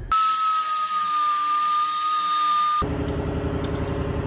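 A power tool spinning with a steady high whine and hiss for about two and a half seconds, cutting off abruptly. A low, steady mechanical rumble follows.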